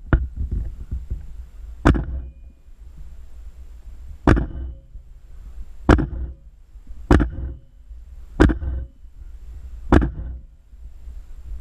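Airsoft rifle firing single shots: six sharp cracks a second or two apart, over low wind rumble on the microphone.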